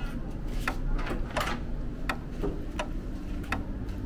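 Footsteps on a hard floor, a sharp click about every three quarters of a second, over a low steady hum.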